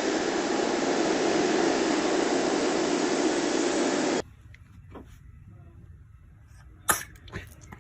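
A steady loud rushing noise that cuts off suddenly about four seconds in. Then it is quiet, with a few faint clicks and one sharp knock near the end.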